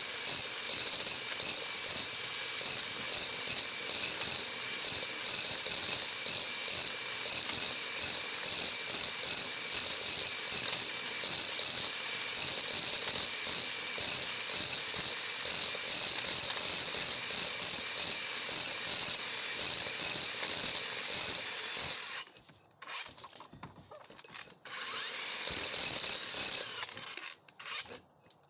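Cordless SDS-max drill (Bosch GBH 18V-45C) running a core bit through brick: a steady high whine with a rhythmic pulse two or three times a second. It cuts off suddenly twice near the end and starts again, as the trigger is released and pressed.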